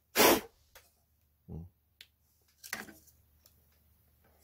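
Short handling noises while dust is knocked off computer parts: a loud brief rush of noise just after the start, a dull knock about a second and a half in, and a weaker short scrape near three seconds.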